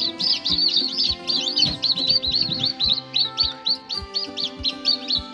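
Newly hatched chicks peeping rapidly, a run of high, shrill cheeps about four or five a second, each rising and falling, over background music with a steady beat.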